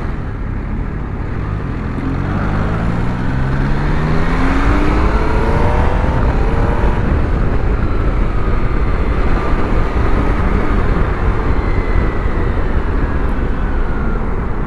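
MV Agusta Turismo Veloce 800's three-cylinder engine accelerating, its pitch rising steadily for several seconds from about a second and a half in. It then runs on under a heavy, steady rush of riding noise.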